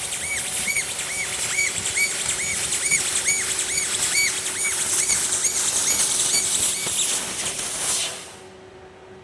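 CNC machine cutting 1.5 mm type 201 stainless steel sheet: a loud hiss with a pulsing tone that repeats about three times a second. The cut stops suddenly about eight seconds in, leaving a faint steady hum.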